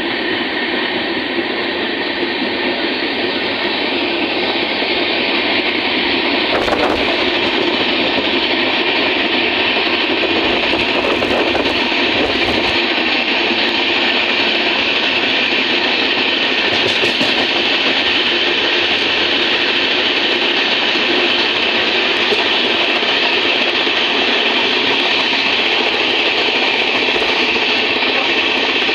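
A moving train running steadily along the track, its wheel and carriage noise even throughout, with a few sharp knocks scattered through the middle.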